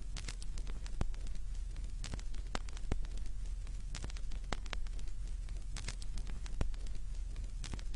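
Vinyl record surface noise from a record player's stylus in the groove: irregular crackles and pops, several a second, over a steady hiss and low hum, with no music playing.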